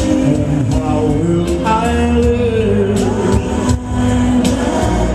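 Live pop music from a duo: an electric guitar over a full band sound with a steady bass, with a male singer's voice in places.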